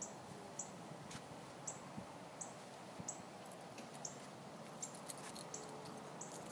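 Faint, short, high-pitched chirps repeating about every two-thirds of a second over a quiet, steady background.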